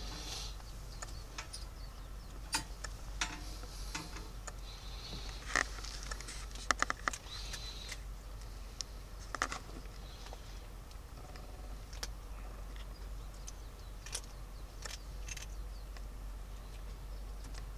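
Kittens moving about on a blanket and cardboard box: scattered light ticks and scratches from their claws and paws, with a quick run of clicks about seven seconds in.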